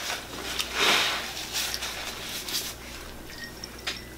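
Close-up eating sounds: chewing and crunching on the crispy crust of a fried apple pie, in short irregular bits, loudest about a second in.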